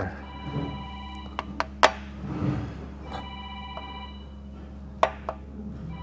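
Sharp metal knocks, three close together about a second and a half in and two more near the end, from the number two connecting rod of a Doosan D34 diesel being rocked by hand on its crankshaft journal: the rod bearing has spun and disintegrated, leaving metal-on-metal play. A telephone rings twice in the background, each ring about a second long.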